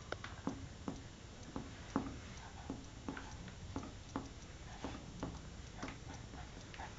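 Faint finger-on-finger percussion over the abdomen: a steady series of soft taps, about two to three a second, as the pleximeter finger is moved up from navel level to find the lower border of the liver.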